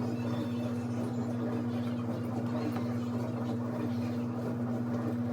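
A steady low hum that does not change, with a few faint scattered clicks.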